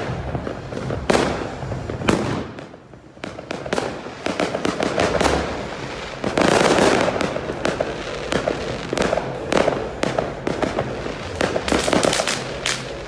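Fireworks going off: repeated sharp bangs and cracks, some single and some in quick rattling runs, thickest and loudest about six to seven seconds in.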